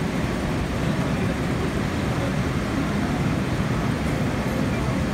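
MTR Tsuen Wan line electric train pulling into an underground platform, a steady low rumble heard from behind the platform screen doors.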